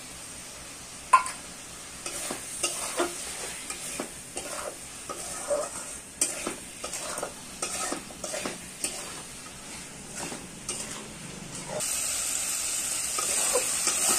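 A long metal spoon stirs and scrapes in an aluminium kadai of frying onion-tomato masala, with many short scraping clicks and one sharp metal knock about a second in. The masala sizzles throughout, and the sizzle grows louder and steadier near the end.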